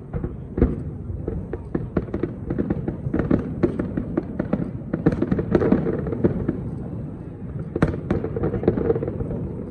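Aerial firework shells bursting in quick succession: a dense run of bangs and crackle, with sharper loud reports about half a second in and again near eight seconds.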